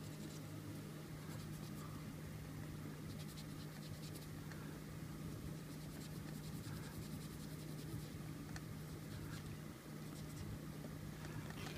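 Faint scratchy rubbing as the metal collar on a tobacco pipe stem is scrubbed with alcohol to lift grime and tarnish, over a steady low hum.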